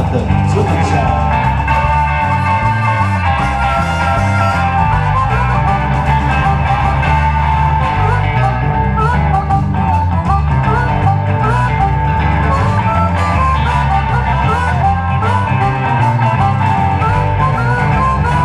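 Live blues band playing an instrumental boogie break: harmonica lead with held, bending notes over electric guitar, bass guitar and drum kit.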